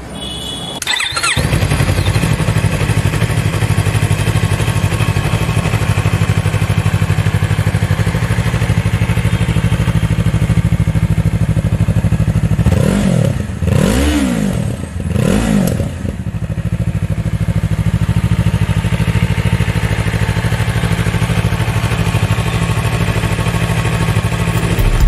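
A Yamaha MT-03's 321cc parallel-twin engine is cranked on the electric starter and catches about a second in, then idles steadily. About halfway through, the throttle is blipped three times, each rev rising and falling back to idle.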